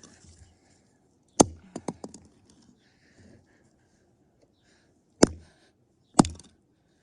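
Cheap plastic toy car being smashed: three sharp cracking impacts, the first followed by a few small clattering clacks.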